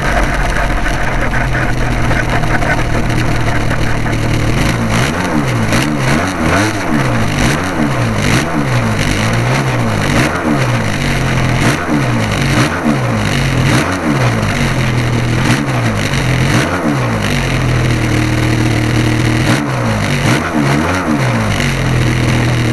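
Model aircraft engine running steadily at idle, heard from the plane itself, with a second model engine close by that makes the sound waver up and down in pitch through most of the middle.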